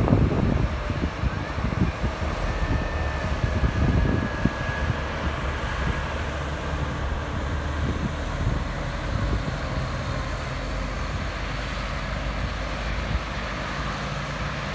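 Challenger MT965E tractor's diesel engine running steadily under load as it pushes chopped silage with its front blade, with wind buffeting the microphone, strongest in the first second.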